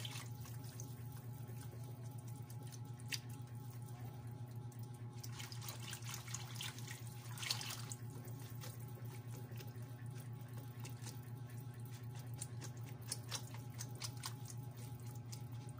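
Wire whisk stirring a thin liquid batter in a metal pan: faint liquid sloshing with a few sharp clicks of the whisk against the pan, over a steady low hum.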